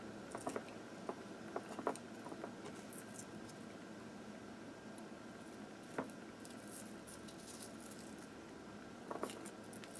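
Faint, scattered light clicks and soft squishing as fingers push onion and jalapeno slices down into a glass jar packed with hard-boiled eggs, over a low room hum. There are a few clicks in the first two seconds, one around six seconds in, and a short cluster near the end.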